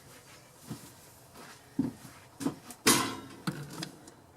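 A few scattered light knocks and clunks of objects being handled, the loudest about three seconds in, followed by a brief rustling scrape.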